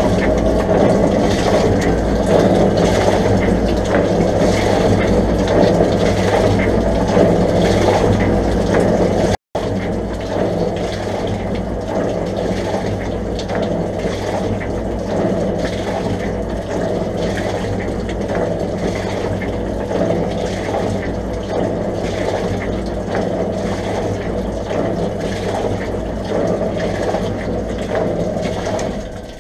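1947 MacEntee bore pump running steadily with a low hum, while water gushes and splashes out of the opened bung at the base of its pipework. The pump is being run to purge air from the line and flush it until the water runs clear.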